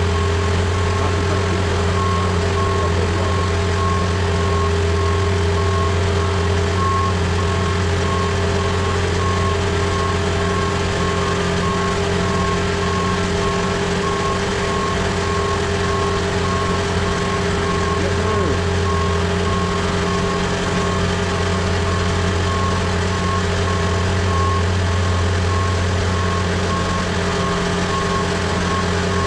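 A boom lift's engine running steadily, with its motion alarm giving an even, repeating high beep as the machine travels.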